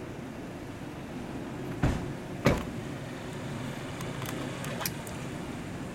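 Two dull thumps about half a second apart, nearly two seconds in, over a steady low outdoor hum. A few faint clicks follow near the end.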